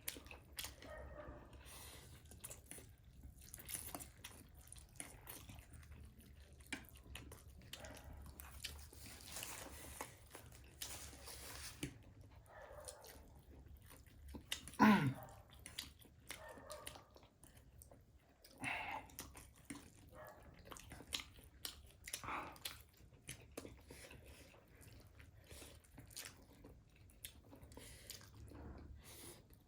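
Close-up mouth sounds of people eating spicy instant noodles: steady chewing with small wet clicks. About halfway through there is one short, louder pitched sound that drops in pitch.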